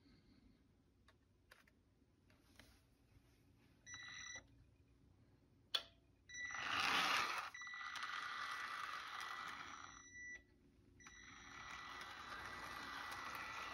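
Small electric motor and gearing of a battery-powered HO scale streetcar running along the track, with a steady high whine over the running noise. It blips briefly about four seconds in, runs from about six seconds, stops for a moment around ten seconds, then runs again.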